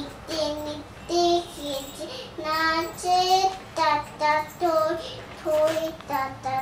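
A young girl singing a song in a high child's voice, in short held notes with brief breaks between them.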